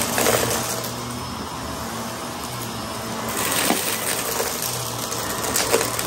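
Upright bagless vacuum cleaner running steadily as its brush head is pushed over a shag rug strewn with debris, crunching as it sucks up the scattered pieces, with louder bursts at the start, a little past halfway and near the end.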